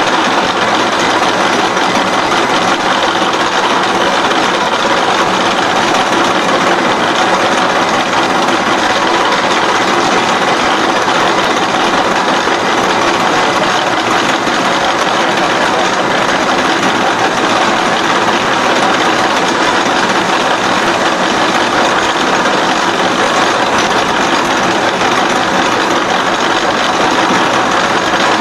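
SXA55 CNC H-beam bevelling machine milling the steel beam edge: steady, continuous noise of the spindle motor and the cutter in the cut.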